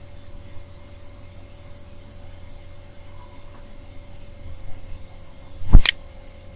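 Steady low electrical hum, with a computer mouse button clicked once near the end.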